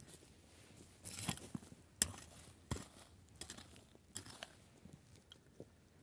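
Faint, scattered crunches and knocks of dry, clod-strewn tilled soil, about one every half-second to second, with a little more crunching about a second in.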